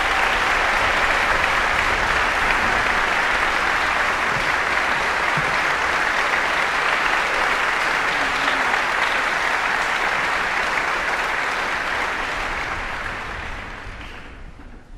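Audience applauding steadily, then fading out near the end.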